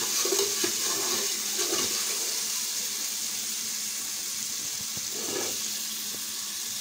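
Tomato paste frying in groundnut oil in a metal pot, a steady sizzle, with a spoon stirring and scraping through it in the first couple of seconds.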